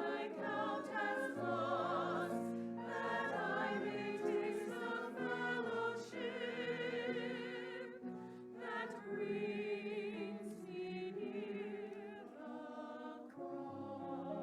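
A choir singing a sacred piece in sustained, legato phrases, the voices' long held notes wavering with vibrato.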